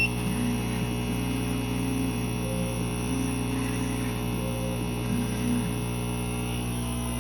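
Laser engraver's stepper motors whining in a series of short steady-pitched runs as the laser head moves through a test pass, over a steady electrical hum. A click sounds right at the start.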